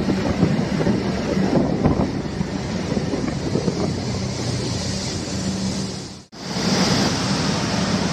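Wind rushing over the microphone on a moving TVS 125 cc scooter, over the steady hum of its engine and tyre noise, echoing in a road tunnel. The sound cuts out abruptly for a moment about six seconds in, then returns.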